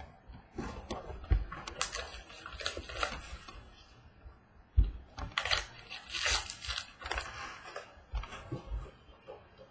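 Foil-wrapped trading-card packs being handled and torn open: irregular bursts of crinkling and tearing with small clicks, and a few thumps, the loudest about five seconds in.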